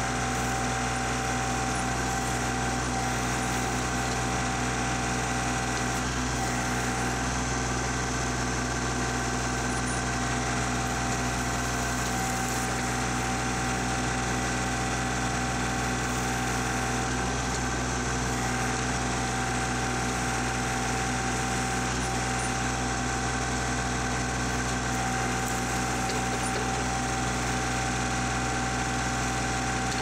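Kubota L3901 compact tractor's diesel engine running steadily as its BH77 backhoe digs a trench, a constant drone with a steady tone through it.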